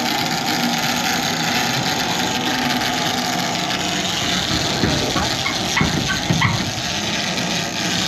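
Steady noise of a fishing boat's engine running, with wind and water. A few short knocks come about five to six and a half seconds in.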